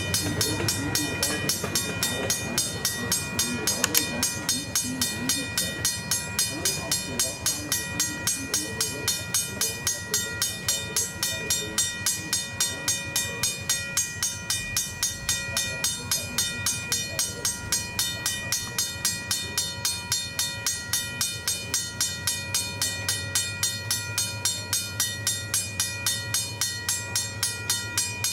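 Griswold mechanical crossing bell ringing steadily, its clapper striking about two to three times a second with a bright, sustained ring between strokes: the crossing signal is active for an approaching or passing train.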